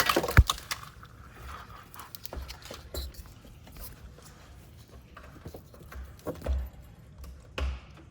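Wiring harness being handled and laid over an engine: scattered clicks, knocks and rustling of plastic connectors and wire loom, with a cluster of sharp knocks at the start.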